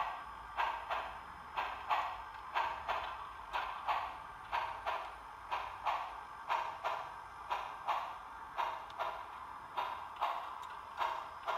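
Sound-equipped HO-scale Western Pacific 2-8-8-2 Mallet steam locomotive model playing slow, steady exhaust chuffs, about two a second, as it creeps along under low power.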